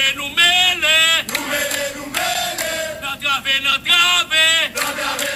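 A man's voice singing a chant, loud, in short wavering phrases that slide up and down in pitch.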